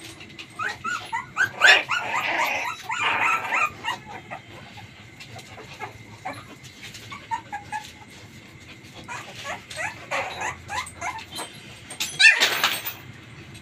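Twenty-day-old pit bull puppies whimpering and yipping in short, high calls that come in bursts, with a louder rough burst of noise near the end.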